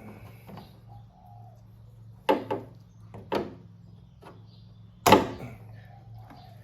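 Sharp knocks and clicks of small hard parts being handled, as the old fuel injectors are pulled from the fuel rail and set down. Two knocks come close together about two seconds in, another follows a second later, and the loudest comes about five seconds in, over a steady low hum.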